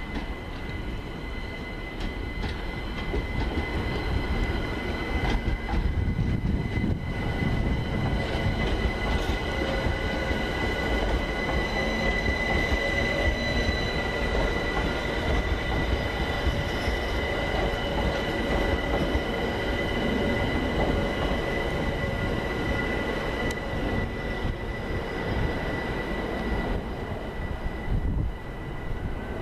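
London Overground Class 378 Electrostar electric train running slowly into the station, its wheels squealing on the curved track in a steady high multi-tone screech over the rumble of wheels on rail. The squeal swells in the middle and fades near the end as the train draws to a stop.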